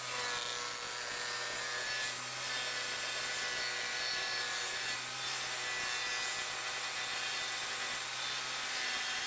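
Table saw ripping a plywood panel: the blade cuts steadily under load, a constant sawing noise with a steady motor tone under it.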